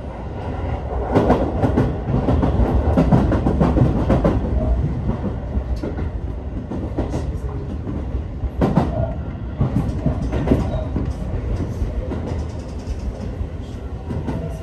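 Seibu 30000 series electric train running, heard from the cab: a steady low rumble with bursts of wheel clatter over rail joints and points, densest early on and again around the middle. The clatter eases off as the train slows on the approach to the end of the line.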